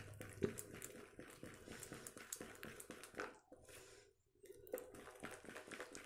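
A spoon stirring gram-flour and water batter in a steel bowl: faint, quick clicks and scrapes of the spoon against the bowl with soft wet squishing. There is a brief pause about three and a half seconds in.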